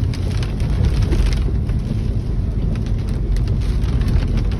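Hurricane rain and wind: a steady low rumble of wind with scattered taps of raindrops hitting a surface.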